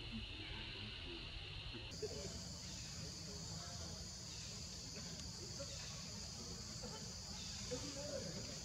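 Steady high-pitched chorus of insects, such as crickets or cicadas, over a low background rumble; about two seconds in, the chorus switches abruptly to a higher pitch.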